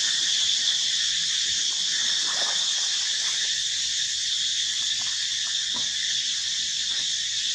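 Steady, shrill chorus of insects droning without a break, with a few faint short sounds underneath.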